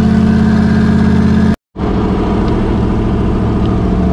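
Twin-turbo Ford Coyote 5.0 V8 idling steadily, heard from inside the Mustang's cabin. The sound drops out for a moment about one and a half seconds in, then the same idle carries on.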